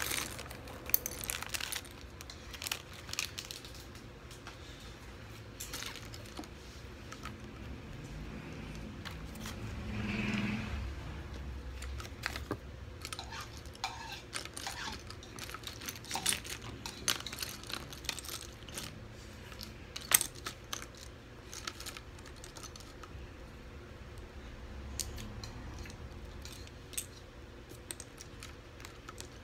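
Small plastic building bricks clicking and clattering against each other and the table as they are picked through and sorted by hand, in many light irregular clicks. A brief muffled sound rises and fades about ten seconds in.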